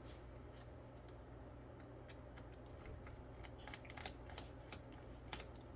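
Faint, irregular small clicks and taps of hands handling and prying at the laptop's internal plastic and metal parts, growing busier about two seconds in, over a low steady hum.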